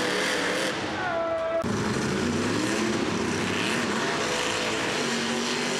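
Monster truck engines running hard and revving, with one engine climbing in pitch about two seconds in.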